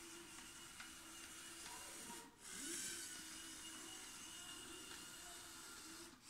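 LEGO Spike Prime train's small electric motor whirring faintly and steadily while its plastic wheels roll and rub along the plastic track. The sound drops out briefly about two seconds in and again near the end.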